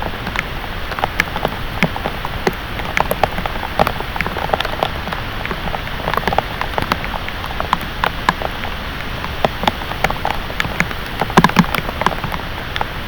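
Heavy rain falling steadily, with many sharp individual drops hitting close by, a few louder splats about eleven seconds in.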